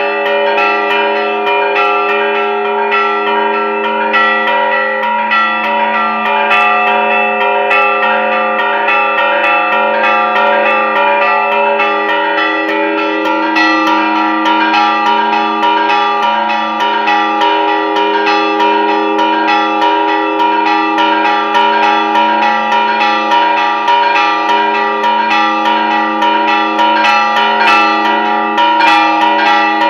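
Church bells rung in a repique, a festive peal for the patronal feast's novena: several bells struck in rapid, continuous succession, their ringing tones overlapping without a break.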